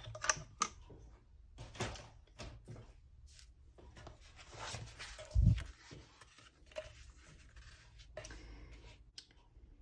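Handling noise on a craft desk: a card panel rustling and sliding, with scattered small clicks and knocks and one dull thump about five and a half seconds in as equipment is set down.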